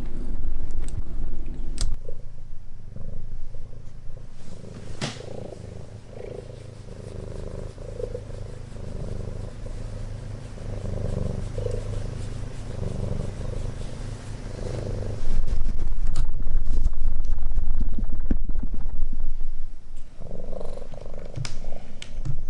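Domestic cat purring close to the microphone: a steady low rumble that pulses in a slow, even rhythm. It grows louder about two-thirds of the way through.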